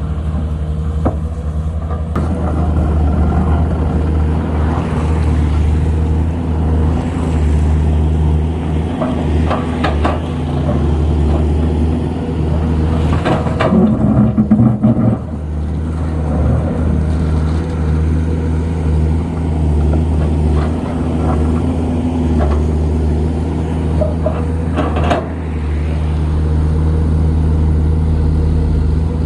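Komatsu PC210LC excavator's diesel engine running steadily under hydraulic work, with occasional knocks and clanks. The engine rises briefly about halfway through.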